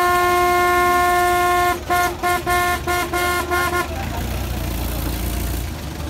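Vehicle horn blowing one long, steady blast of nearly two seconds, then a quick string of short toots at the same pitch.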